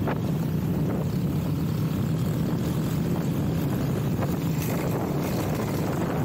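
Honda CRF-X dirt bike's single-cylinder four-stroke engine running steadily while riding, a continuous low drone with no change in pace.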